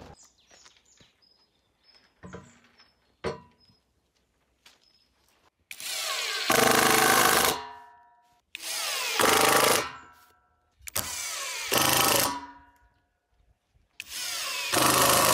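Cordless impact driver sinking screws through steel leg mounting plates into a walnut table top: four separate runs, each starting quieter and getting louder partway as the screw bites and the driver starts hammering. A few light clicks of handling come before the first run.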